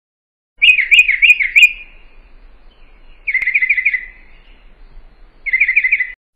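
A small bird chirping in three short runs of quick repeated notes, each run lasting under about a second, with pauses between them.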